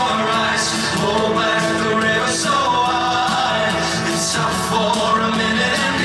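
Male vocal group singing live with a backing band, the voices holding and sliding through sung phrases over the band.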